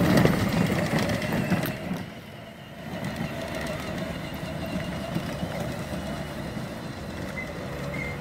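Small youth ATV engine running as the quad rides around, louder for the first two seconds, then quieter and steady.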